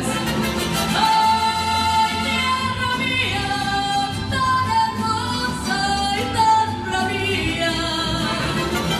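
Live mariachi ensemble performing a song: a held, stepwise melody sung over guitars and a guitarrón's bass.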